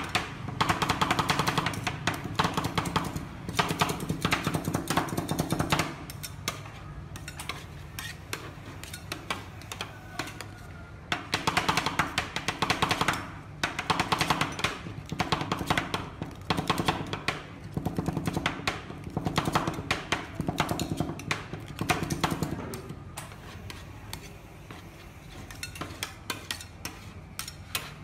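Two metal spatulas chopping and scraping ice cream on a steel cold plate: quick runs of metallic tapping and clacking, with lulls between runs and quieter tapping near the end.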